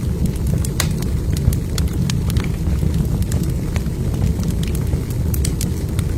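Wood fire burning in a fireplace: a steady low rumble of flames with frequent small, irregular crackles and pops from the burning logs.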